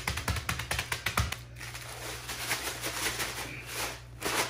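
Saltine crackers being crushed by hand inside a zip-top plastic bag: rapid crackling snaps of breaking crackers, giving way after about a second and a half to a denser crunching rustle of crumbs and crinkling plastic.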